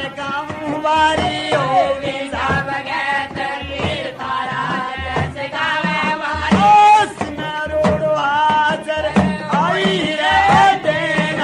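Men singing a Rajasthani-style devotional folk bhajan to Goga Ji in strong, spirited voices, with a steady beat from laced hourglass drums and frame drums and the clink of a small metal bowl struck with a stick.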